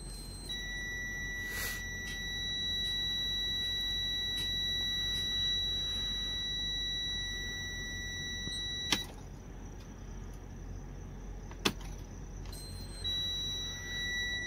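Freightliner Cascadia dashboard warning buzzer sounding a steady high tone while the ignition key is on. A click of the key switch cuts it off about nine seconds in, another click follows a few seconds later, and the buzzer comes back on near the end as the key is cycled to clear fault codes.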